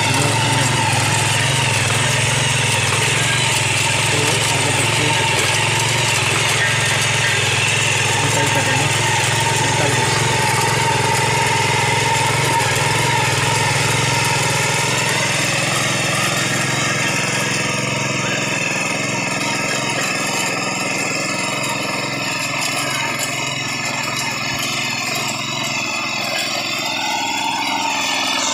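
Small power tiller engine running steadily under load while its rotary tines churn through dry soil, a little quieter in the second half.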